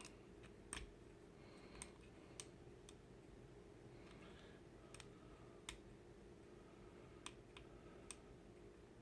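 Faint, irregular small clicks of a small key working the set screw that holds a magwell on a Glock 17 grip, about nine clicks spread over several seconds, as the screw is tightened down.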